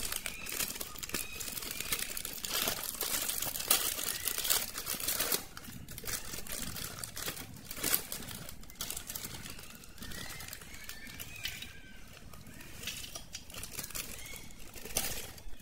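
Crinkling and rustling of a foil-lined plastic snack packet being torn open, tipped and shaken, with puffed snacks spilling onto a steel plate. The crackling is irregular, with sharp crackles scattered through it.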